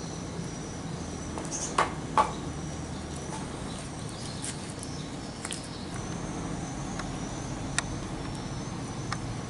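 Steady outdoor background with faint high chirping calls, broken by a few sharp clicks: two loud ones close together about two seconds in and another near the end.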